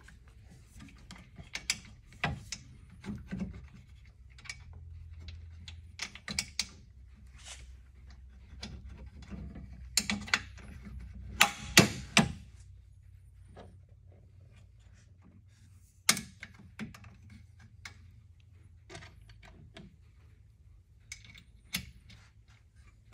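Irregular metal clicks, taps and knocks as a clevis pin with its plastic IGUS bushing is worked through a bed actuator's steel mounting bracket and the actuator end is handled. The loudest cluster of knocks comes a little past the middle.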